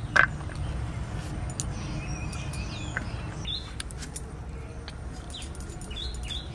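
Light clicks and crunches of an ash gourd being sliced on a boti blade, with a short clack near the start, while small birds chirp in the background.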